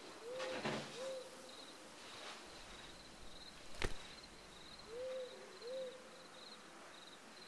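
An owl hoots twice in quick succession, then twice again about five seconds later, over crickets chirping steadily. A single sharp click comes near the middle.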